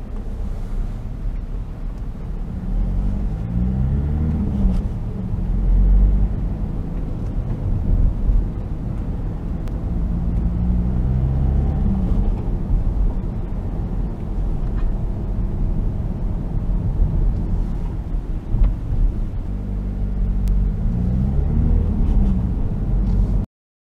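Car engine and road rumble heard from inside the cabin; the engine note rises in pitch three times as the car picks up speed, each rise breaking off sharply. The sound cuts off suddenly near the end.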